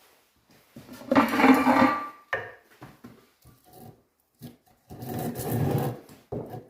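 A hand tool scraping along wood in long strokes of about a second each, with short scrapes and small knocks between them.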